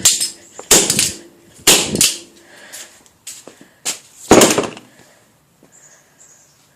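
A Master combination padlock being banged against the ground: four loud, sharp impacts in the first four and a half seconds, the last one the loudest, with a few lighter knocks between them.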